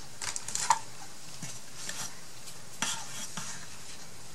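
Light rustling and scraping from twine being handled and laid across a wooden box, with a few small clicks and taps.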